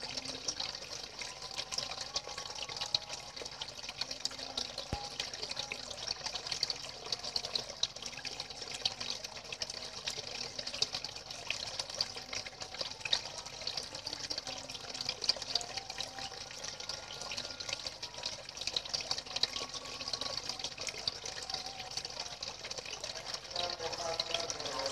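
Two thin jets of water splashing steadily into the surface of a fish pond, a continuous hissy splash.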